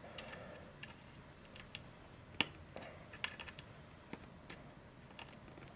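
Faint, scattered small clicks and ticks from pliers being squeezed to crimp a thin control cable at a model glider's tail control horn, the loudest click about two and a half seconds in.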